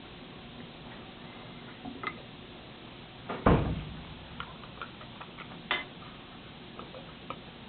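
Light clicks and taps from a glass jar being handled on a table, with one loud thump about three and a half seconds in.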